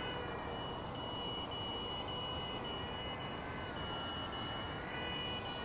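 A continuous high-pitched low-battery warning buzzer sounding as the quadcopter's 4S LiPo runs nearly flat, with the Eachine 250 Pro's motors faintly whining and shifting in pitch as it lifts off and sets down.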